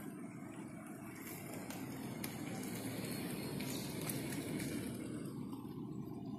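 A car driving past on a hill road: a steady low rumble of engine and tyres that builds over the first few seconds and eases near the end as the car moves off.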